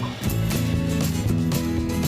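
Background music: a strummed guitar track with a steady beat.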